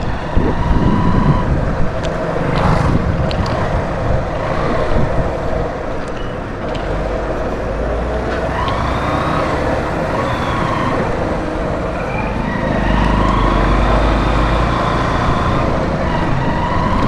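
Street traffic: motor vehicles running and passing in a steady rumble, with several short tones over it.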